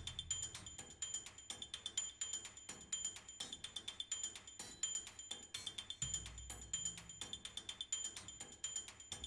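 A sound-effect track of fast, even ticks, about seven a second, each with a high ringing tone. A low hum joins about six seconds in.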